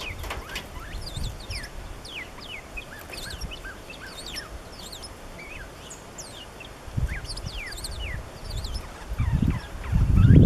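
Songbirds calling: many short, high, downward-slurred chirps from an unidentified bird whose notes partly sound like a northern cardinal's, with American tree sparrows calling in the background. A low rumble swells near the end.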